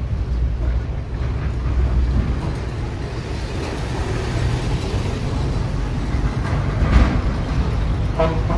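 Steady low rumble of background noise, with a single sharp knock about seven seconds in and a brief pitched sound near the end.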